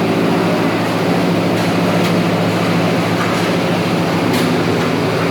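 Steady low mechanical drone of a machine running at a constant speed.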